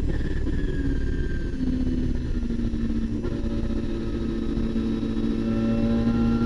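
Twin-turbo RB26 straight-six of a Nissan R32 Skyline race car heard from inside the cabin. The engine note falls from high revs as the car slows into a corner. It then holds low and steady and starts to climb again near the end.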